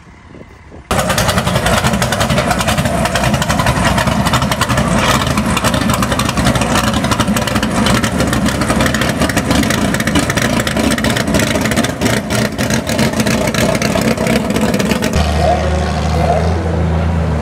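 Heavy vehicle engine running loud and hard from about a second in, a dense noisy sound across the whole range. Near the end it changes abruptly to a steadier, lower engine drone with even pitched tones.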